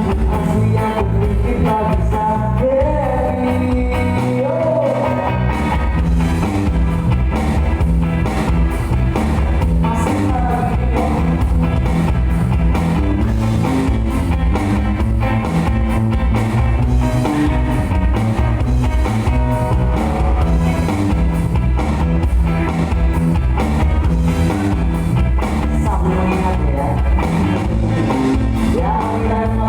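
Live band music with a steady beat: drums, bass and guitar playing continuously, with a melodic line rising and falling over it.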